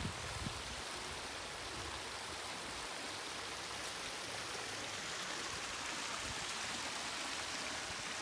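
Small creek running over a rock ledge into a river, a steady rushing hiss of splashing water.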